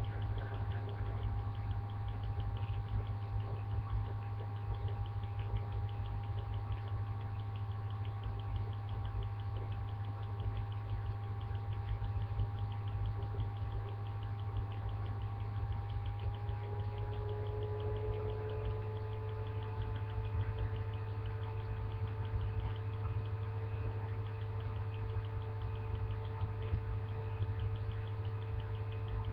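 A steady low hum with a couple of faint held tones above it; the tones shift slightly higher about 17 seconds in.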